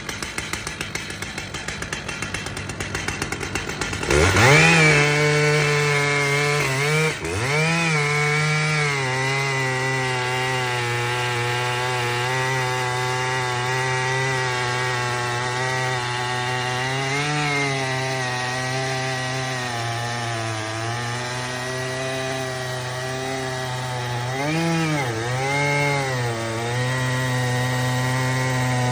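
Stihl MS881 two-stroke chainsaw ticking over at idle, then revved hard at about four seconds and held at high speed. Its pitch sags briefly three times.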